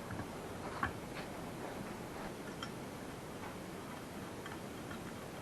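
A few faint, scattered metallic clicks and ticks as small engine parts and hand tools are handled while a plate is fitted to the engine, one click more distinct about a second in.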